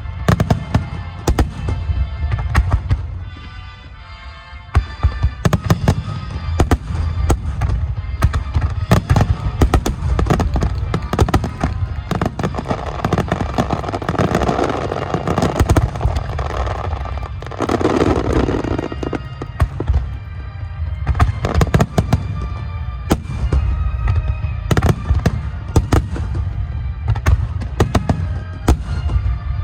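Aerial fireworks shells bursting in quick succession over music from the show's loudspeakers. The bursts ease off briefly a few seconds in, then thicken into a dense barrage in the middle.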